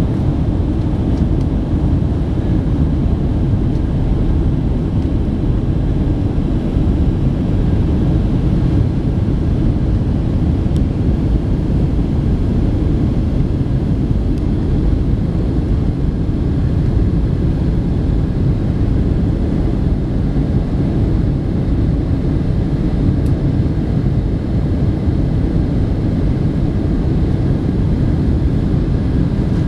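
Boeing 737-700 cabin noise heard from a window seat over the wing: a steady low rumble of the CFM56 turbofan engines mixed with the rush of air past the fuselage in flight.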